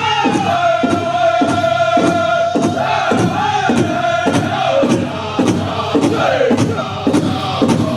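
Southern-style powwow drum group singing a crow hop song in high, held voices over a big drum struck in a fast, steady beat of about two to three strokes a second.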